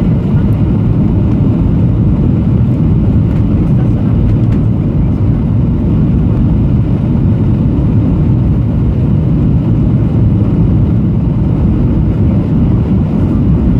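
Steady low rumble inside the cabin of a Boeing 737-800: engine and airflow noise from its CFM56-7B engines and airframe, even throughout.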